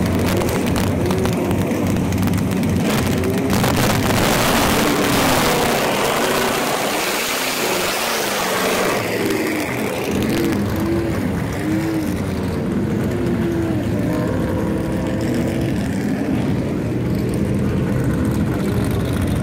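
Vintage V8 race car engines, a first-generation Chevrolet Camaro and a Ford Mustang Shelby GT350, rumbling at low speed as the cars pull away, with the revs rising and falling several times midway.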